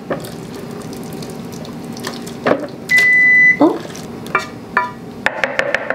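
Soft boiled cauliflower mixture sloshing and sliding out of a stainless steel pan into a plastic blender jar as it is scraped out with a wooden spoon. A short steady high beep sounds about three seconds in, and a few sharp clicks come near the end.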